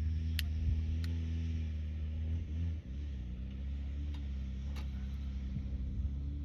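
An engine running steadily at low revs, dipping briefly about halfway through, with a few sharp clicks over it.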